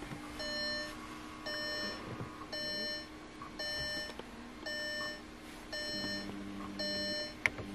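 Car's dashboard warning chime beeping about once a second, each a short single-pitched tone, over a faint steady hum.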